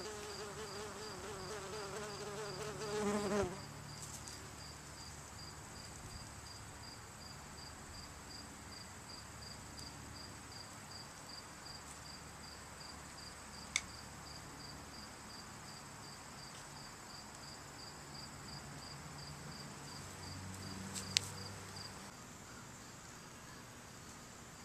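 Insects chirping in a steady, even pulse over a thin, high, continuous insect drone. A flying insect buzzes close by for the first three seconds or so. Two sharp clicks come through, one about halfway and one near the end.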